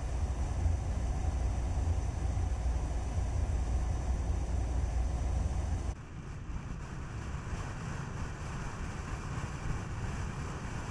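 Steady road and wind noise from a Skoda Kodiaq driving, with a deep rumble that cuts off abruptly about halfway through, leaving a lighter hiss.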